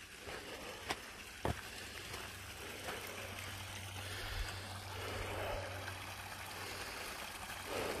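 A small creek's water running and trickling steadily, a little louder after a couple of seconds, with two footsteps about a second in.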